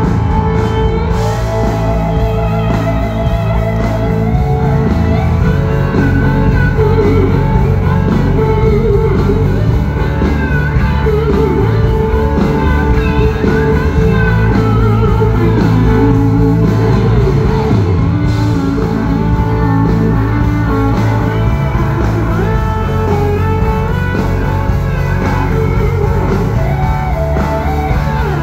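Live country-rock band playing loud and steady through a concert PA, electric guitars over drums, as heard from the crowd.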